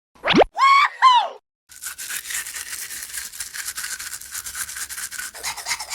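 A short rising whistle-like swoop and two brief calls falling in pitch, then rapid, steady scratchy scrubbing strokes, like brushing or rubbing, from about two seconds in.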